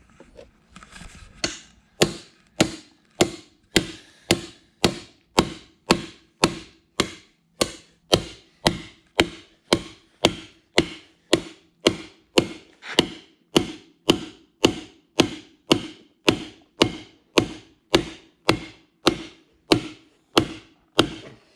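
Hammer or mallet blows struck steadily, about two a second, some thirty-five strikes in a row, each a sharp knock with a short ring: beating on an ATV tire to break its bead off the rim.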